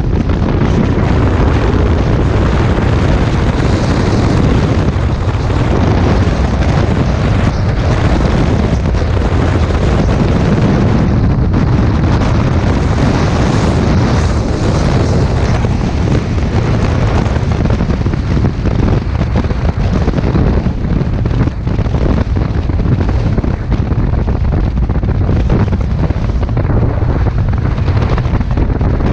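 Loud, steady wind buffeting on a motorcycle-mounted camera's microphone at highway speed, with the motorcycle's engine and road noise underneath.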